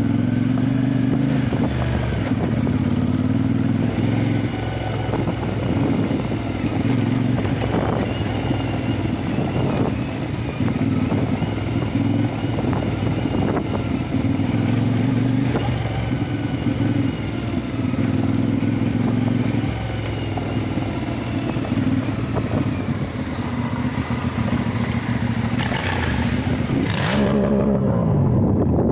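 Adventure motorcycle engine running on the move off-road, its pitch shifting a few times as the rider eases off and opens the throttle. A brief loud rush comes near the end.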